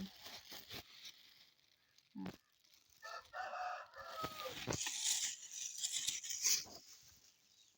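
A rooster crowing once, a single drawn-out call of about a second and a half, followed by a rustling hiss.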